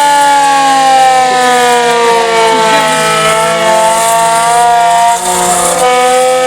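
Emergency warning siren wailing loudly, its pitch slowly sinking over a few seconds and then climbing again.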